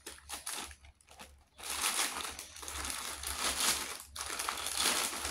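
Plastic mailing bag crinkling and rustling as it is handled and pulled open. It comes in rough patches and grows louder and busier from about a second and a half in, with a short lull near the end.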